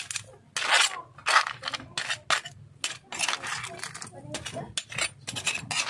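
A metal spoon or ladle scraping and clinking against a cooking pot in quick, irregular strokes while the dish is stirred.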